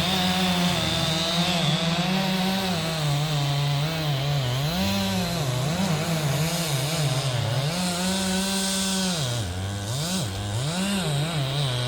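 Chainsaw running at high revs and cutting wood, its engine speed repeatedly dropping to about half and recovering as the chain bites and is eased off.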